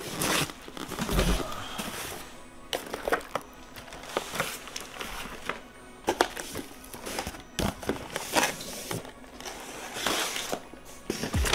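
Irregular clatter and rustling of small containers, packages and a cardboard box being handled and set down on a glass-topped table, with soft music in the background.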